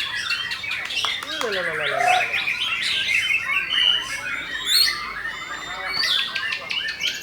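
Many caged white-rumped shamas singing at once in a contest, a dense, continuous tangle of overlapping chirps, trills and whistled phrases. About a second in, a lower call slides steeply down in pitch beneath the song.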